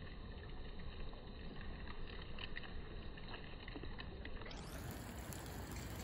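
Faint, steady low rumble and hiss of outdoor background noise, with a few faint ticks.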